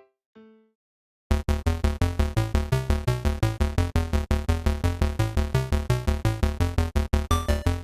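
Background music: a few soft keyboard notes, a pause of about a second, then upbeat electronic music with synthesizer and a fast, steady beat.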